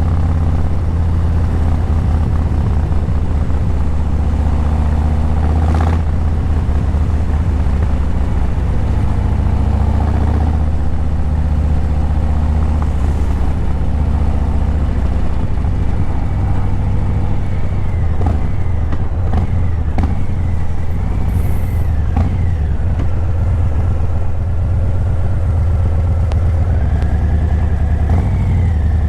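Harley-Davidson Breakout 117's Milwaukee-Eight 117 V-twin running at low, steady revs through Vance & Hines Eliminator 300 slip-on mufflers: a deep, even exhaust note. A thin high whine from another source joins in over the second half.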